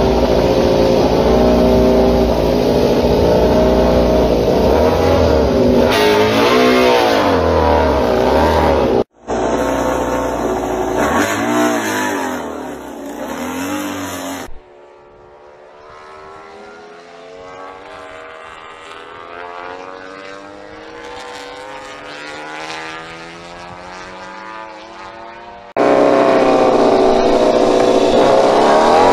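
MotoGP four-cylinder race bike engines in several short clips cut together: a KTM RC16 running loud and being revved on its stand, then a quieter stretch with a bike pulling away down the pit lane, its pitch rising and falling, then a loud engine close up again near the end.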